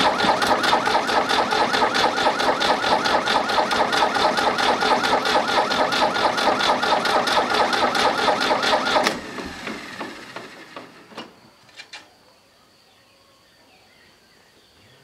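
Fiat 450H tractor's diesel engine turned over on the starter motor with a fast, steady, rhythmic chugging. The starter cuts off abruptly about nine seconds in and the engine spins down. Fuel is spurting from an opened fitting on the injection pump, so the fuel system is being bled of air after a fuel filter change.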